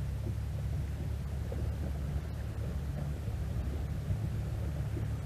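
Small outboard motor running steadily at low speed, a low even hum.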